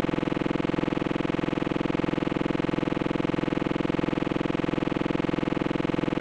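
Steady electronic buzzing drone with a fast, even flutter, holding one unchanging pitch with many overtones.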